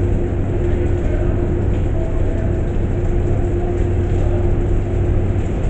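Steady mechanical drone: a low rumble with a constant hum tone held throughout, unchanging in level.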